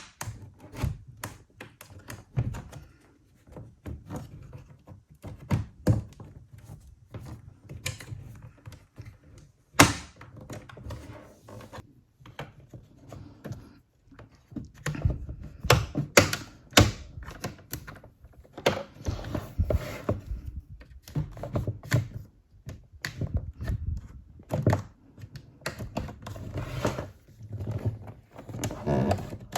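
Plastic bottom case of an MSI GE63 gaming laptop being pried off with a spudger: irregular clicks, snaps and knocks as the case clips release. The sharpest snap comes about ten seconds in.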